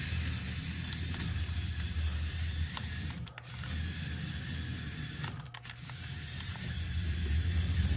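Building-block RC car chassis running across a wooden floor on a first-generation Mould King L motor: a steady motor whir with gear and wheel clatter, dipping briefly twice.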